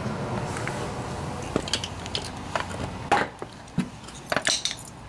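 Small metal hand picks clinking and rattling as they are handled, a handful of sharp clinks in the second half, over the low rumble of passing traffic that fades away in the first few seconds.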